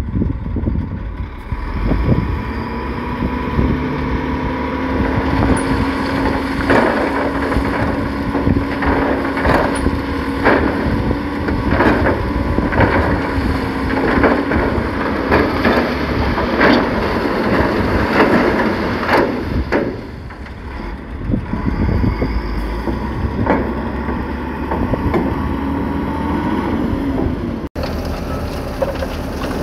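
Heavy diesel construction machinery running steadily, with a run of sharp clanks and knocks through the middle, and the engine note rising slightly just before a brief dropout near the end.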